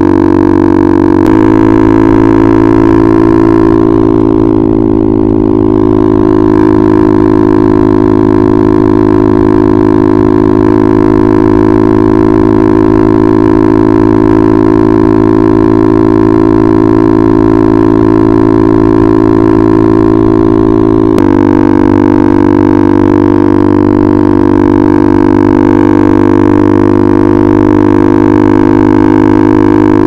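KTM RC 390's single-cylinder engine running at a steady cruise through an Akrapovic exhaust, a loud, even drone. Its note steps abruptly to a new pitch about a second in and again about two-thirds of the way through.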